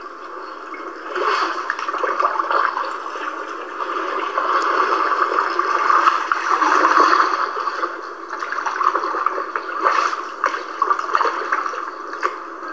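Floodwater rushing and gurgling through a flooded street, a steady noise that swells and fades, thin with no bass.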